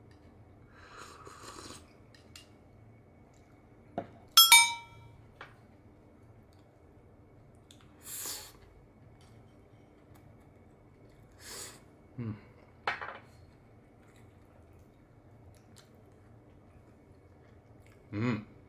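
Tableware sounds of someone eating with chopsticks from bowls. One loud, ringing clink of crockery comes about four and a half seconds in, with a few softer clicks and brushing sounds later on.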